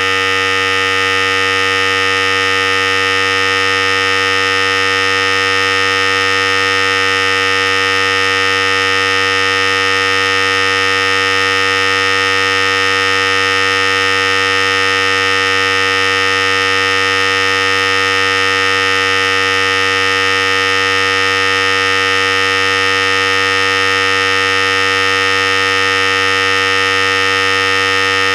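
Philips Series 5000 electric hair clipper running continuously, a steady, unchanging buzz.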